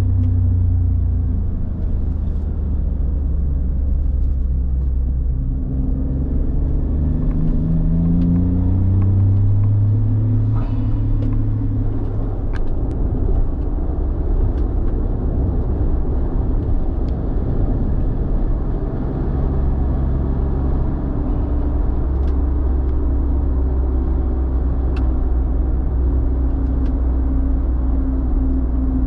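Suzuki Jimny JB64's three-cylinder turbo engine running as the vehicle drives, its pitch rising and falling a few times in the first dozen seconds, then settling into a steady drone.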